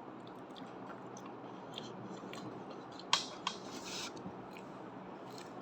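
Quiet chewing and mouth clicks from someone eating a sour candy, with a short burst of crackling about three seconds in.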